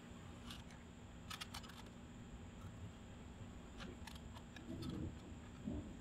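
Faint scattered clicks and light taps, with a small cluster about a second and a half in, from handling tools against a wooden post while its cut lines are marked. Some soft rustling follows near the end.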